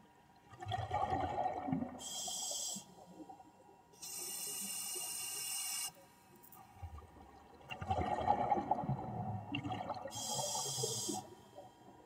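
Scuba diver breathing through a regulator underwater: a hiss on each inhale, alternating with two stretches of exhaled bubbles gurgling and rumbling.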